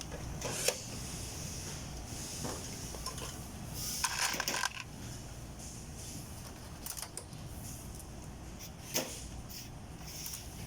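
Scattered light metallic clinks and clatters, with a burst of several together about four seconds in, over a steady low hum.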